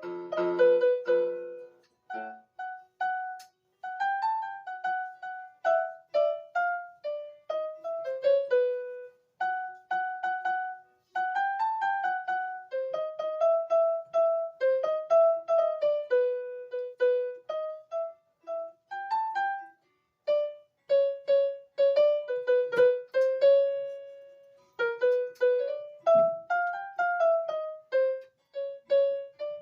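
Electronic keyboard with a piano voice, a melody picked out one note at a time, stopping and starting with short pauses between phrases. A few chords sound at the very start.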